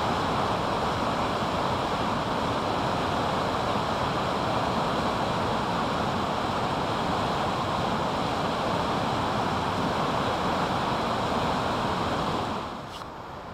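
Fast whitewater river rapids rushing steadily, a dense even wash of water noise. Near the end it drops suddenly to a quieter level.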